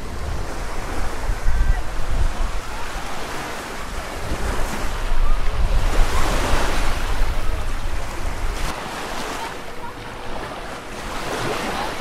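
Small waves washing onto a sandy beach, with wind rumbling on the microphone until about two-thirds of the way through.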